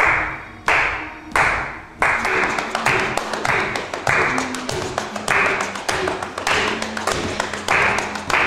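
A percussion beat struck by hand: evenly spaced strikes about one and a half a second, each ringing out briefly. From about two seconds in, the strikes come quicker and less even, with many lighter taps among them.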